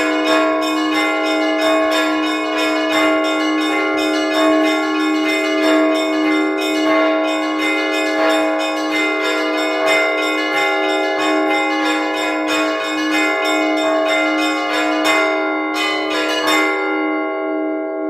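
Orthodox church bells being chimed by hand, several bells struck in quick, dense rhythm. Near the end the strikes stop and the bells are left ringing out, the deeper tones humming on as they fade.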